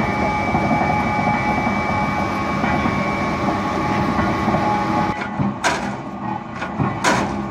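Expanded metal mesh machine running: a steady mechanical rumble and clatter with a constant whine in it. From about five seconds in, two sharp, loud strikes stand out, about a second and a half apart.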